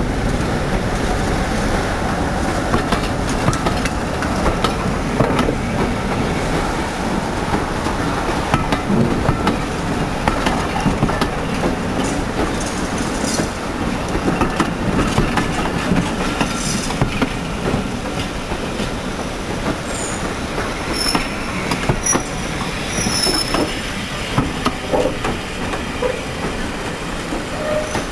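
Railway passenger coaches of a diesel-hauled train rolling past, the wheels clicking over rail joints over a continuous rumble. Short high-pitched wheel squeals come in the second half.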